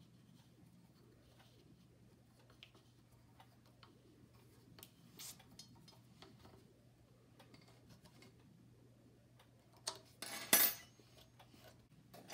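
Faint scattered clicks and scrapes of a small hand tool working at an air compressor's belt pulley, then a louder clatter of metal tools clinking about ten seconds in as they are picked up. A faint steady low hum sits under it all.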